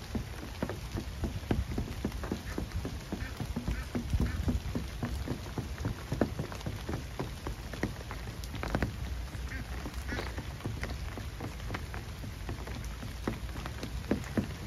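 Steady rain falling on a lake's surface, with many separate drops striking close by, several a second.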